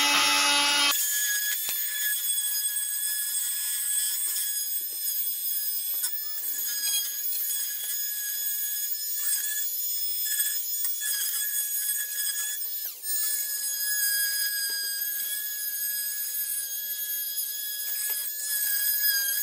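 Oscillating multi-tool cutting into a plasterboard wall corner: a steady high-pitched buzzing whine that starts about a second in, with a brief dip and change of pitch about two-thirds of the way through.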